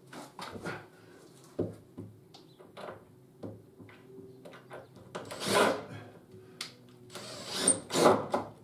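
Hands-on work under a timber staircase: scattered light knocks and scrapes of wood and tools being handled, with a longer, louder scrape about five and a half seconds in and a cluster of louder knocks and rubs near the end.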